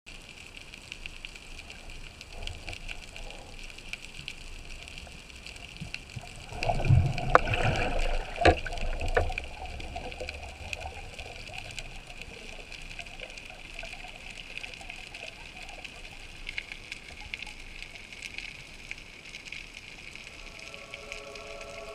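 Underwater ambience picked up by a diver's camera: a steady hiss with faint crackling. Between about 6 and 10 seconds in there is a louder rush and gurgle of water with a few sharp knocks as the diver swims down. Music comes in near the end.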